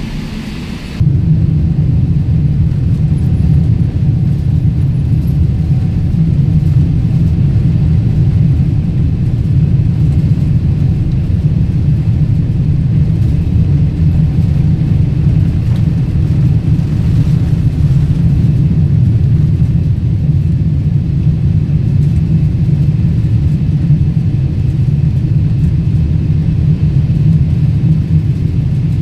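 Airliner cabin during the takeoff roll and initial climb: a loud, steady, deep rumble of the jet engines at takeoff power and the run along the runway, heard from a window seat. The rumble jumps up suddenly about a second in and then holds level.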